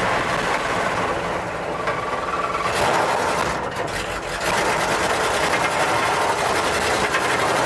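A 1965 Chevy C10 pickup's engine running rough with a fast, uneven rattle, a little louder from about halfway on. The owner suspects the poor running is the fuel filter clogging up with rust from the old tank.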